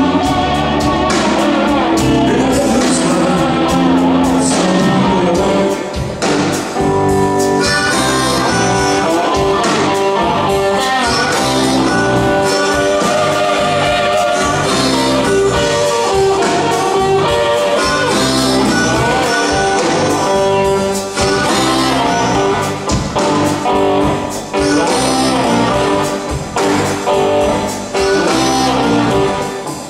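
Live rock band playing a slow blues on electric guitars, bass guitar and drums, with a held lead melody over the band.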